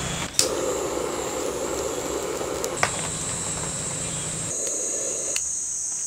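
Butane torch lighter hissing as it lights kindling in a small wood stove, over a steady background rush of rain. The torch hiss stops about five seconds in, and there are a few brief clicks.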